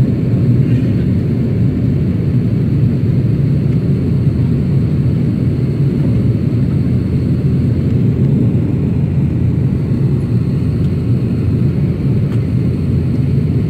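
Airliner cabin noise in flight: a steady, loud low rumble of engines and airflow.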